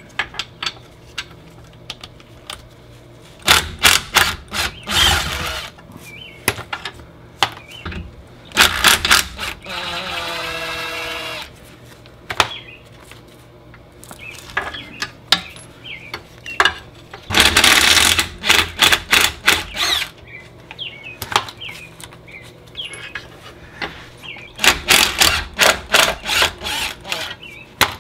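Cordless impact driver hammering in several short bursts of rapid clatter as it loosens the engine mount nuts and bolts. In one burst it spins freely with a whine that falls in pitch.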